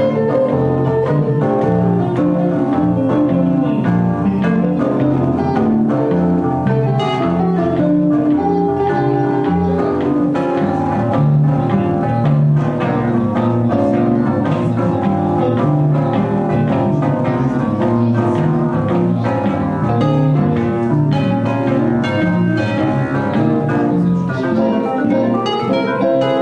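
Live instrumental blues-rock: an electric keyboard and a Squier Stratocaster electric guitar playing together over a steady, stepping bass line.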